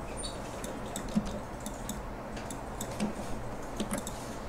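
Computer mouse clicking: a scattered series of light, sharp clicks at uneven spacing over a steady low room hum, as bolt parts are copied and placed in a CAD program.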